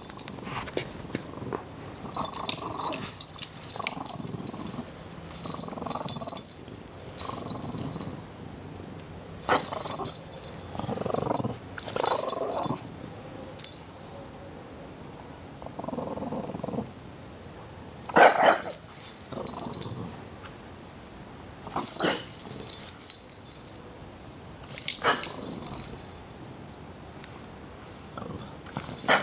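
A Boston terrier and a French bulldog growling in play while tugging a toy between them. The growls come in bouts of a second or two with short pauses, and there are a few sharp louder sounds, the loudest about two-thirds of the way through.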